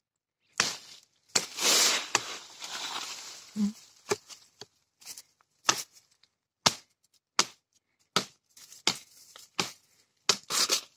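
Hand-made knife with a steel blade cut from a plough disc chopping a green tree branch: a string of sharp blows, roughly one or two a second, with wood splitting and a rustling, tearing noise between the first few blows.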